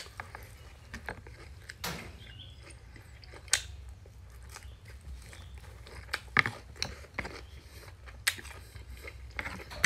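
A person chewing and biting a mouthful of rice vermicelli, grilled pork and fried tofu, close to the microphone, with scattered sharp clicks and smacks from mouth and wooden chopsticks on the plate. A low steady hum runs underneath.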